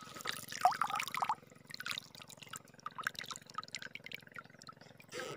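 A hooked fish splashing at the surface as it is pulled from the water on the line, loudest in the first second and a half, followed by scattered drips and small splashes.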